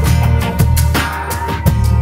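Background music with a steady beat: regular drum hits over a heavy bass line.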